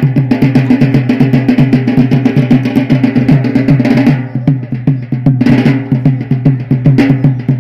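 Yemeni bara'a drumming: drums beating a fast, steady dance rhythm.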